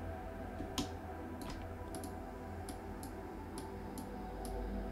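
Computer mouse and keyboard clicks, short dry clicks about twice a second with one louder click about a second in, over a steady low electrical hum.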